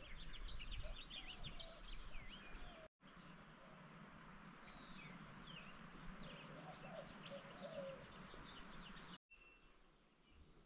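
Wild songbirds chirping and singing faintly: many quick, high chirps and trills, with a few lower warbling phrases. The sound cuts out briefly about three seconds in and again near nine seconds.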